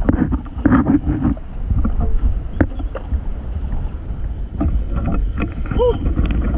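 Small boat moving on the water: a steady low rumble with wind on the microphone and scattered knocks.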